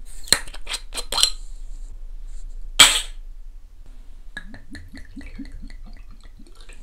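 Soju glugging from a glass bottle into a shot glass: a quick run of short rising gurgles, about four a second, in the second half. Before it come a few light clicks and one sharp snap about three seconds in, the loudest sound.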